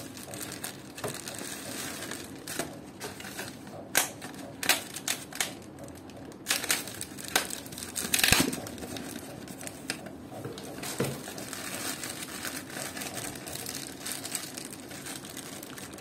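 Clear plastic packaging bag crinkling and crackling as it is handled. Irregular crackles run throughout, with a cluster of sharper, louder ones about halfway through.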